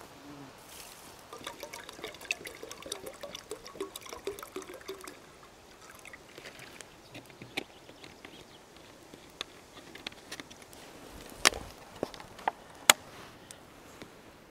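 Water poured from a plastic bottle into an aluminium army mess tin, splashing and gurgling for a few seconds in the first half. Scattered small clicks follow, with two loud sharp cracks near the end.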